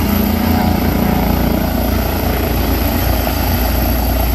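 Police helicopter hovering low: a steady, loud rotor and turbine noise, heaviest in the low rumble, held in place for a winch descent.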